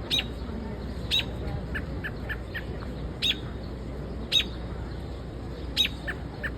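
A bird giving loud, short, sharp chirps, five in all, spaced a second or more apart, with two quick runs of quieter, lower notes between them. A steady low rumble sits underneath.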